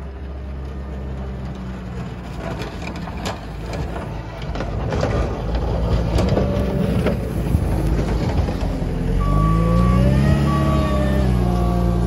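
JCB 409 wheel loader's diesel engine running under load as it pushes snow with its V-plow, growing louder as it comes close, with scraping of the plow and snow in the middle. Near the end the engine revs up and down and a short beep repeats about once a second, like its reversing alarm.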